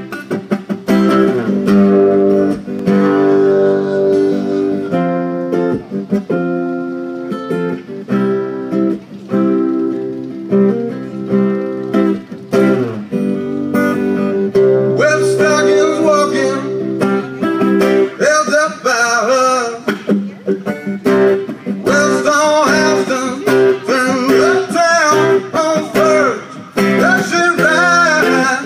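A strummed acoustic guitar plays an intro alone, and a man's singing voice comes in over it about halfway through.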